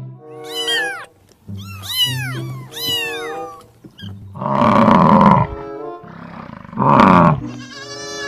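Animal calls over background music: three calls that rise and fall in pitch, then two louder, rougher calls about five and seven seconds in.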